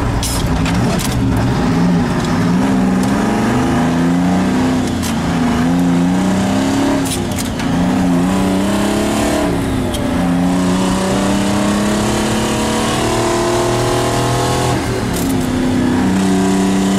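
A Detroit Diesel 6V53 two-stroke V6 diesel in an old Diamond T truck pulls up through the gears, its note rising and then dropping at each shift, heard from the cab. It then holds a fairly steady note at road speed.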